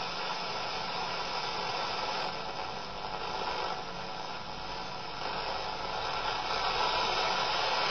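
Steady shortwave static and hiss from an inexpensive Coby shortwave radio's small speaker. The wanted station is swamped by interference: the radio cannot pull the signal in.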